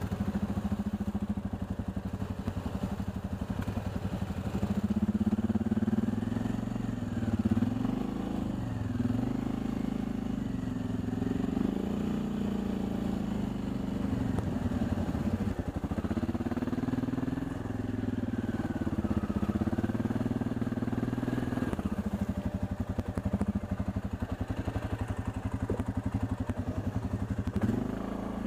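Suzuki KingQuad ATV's single-cylinder engine running under load, its revs rising and falling again and again as it pulls through deep mud ruts.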